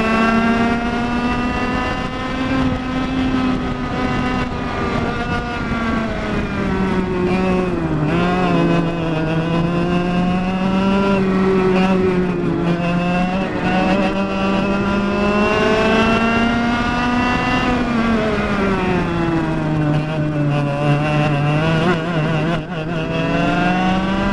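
100cc two-stroke kart engine at racing speed, heard from on board. Its note drops twice, about eight seconds in and again after twenty seconds, as the kart slows for corners, and climbs back up as it accelerates out of them.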